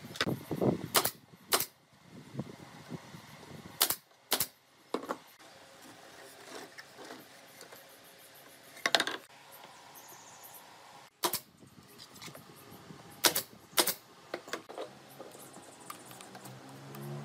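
Pneumatic nail gun firing sharp shots, mostly in pairs about half a second apart, with softer knocks of wooden boards being handled in between.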